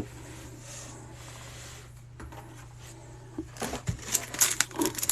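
Packaging of a trading-card pack being handled, with short crinkling rustles starting about three and a half seconds in, over a steady low hum.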